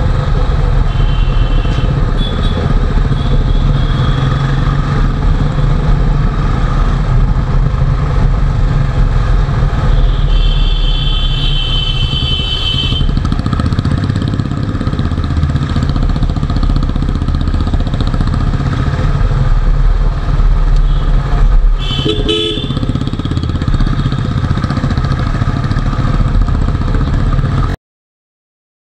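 Royal Enfield Classic single-cylinder motorcycle engine running through a Neo aftermarket exhaust while riding, a loud, heavy bass exhaust note. Vehicle horns sound briefly at the start, for a few seconds about ten seconds in, and again about twenty-two seconds in. The sound cuts off abruptly near the end.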